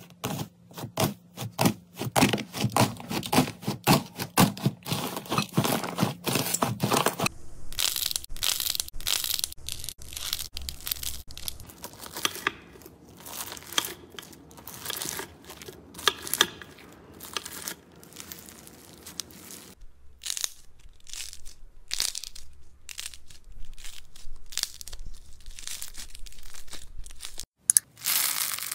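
Crunchy slime being pressed, cut and squeezed: dense, rapid crackling and popping of foam beads and a dried slime crust. The texture of the crackle changes abruptly about 7 and 20 seconds in, as one slime gives way to another.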